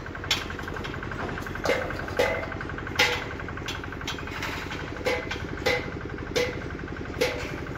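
A machine engine running steadily with a fast, even rattle, overlaid by sharp knocks at uneven intervals, about eight in all, some ringing briefly.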